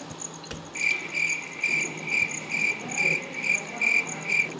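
Cricket chirping in a steady, regular run of short high chirps, about two or three a second, beginning about a second in.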